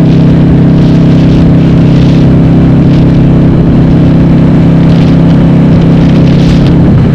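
Harley-Davidson Sportster's V-twin, converted to 1200 cc and breathing through Cobra Speedster 909 pipes with the dB killers removed, running loud at a steady engine speed while cruising.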